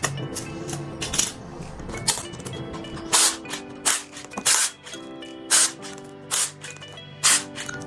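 Background music with steady tones, over which come about six sharp, loud metallic knocks and clinks at irregular intervals in the second half, typical of tools and parts handled while stripping an engine.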